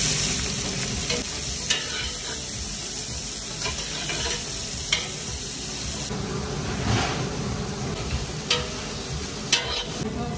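Sliced onions frying in hot oil in a stainless steel pot: the sizzle flares as they drop in, then runs steadily while a metal spatula stirs them, with a few sharp clicks of the spatula against the pan.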